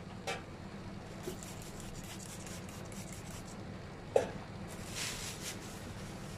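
Hands working on a flower arrangement: light rubbing and rustling of stems and leaves, a few small knocks and one sharp knock about four seconds in, then a brief rustle. A steady low hum runs underneath.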